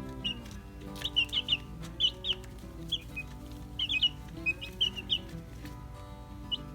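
Young chicks peeping: short, high chirps in quick clusters of two to four, coming every second or so.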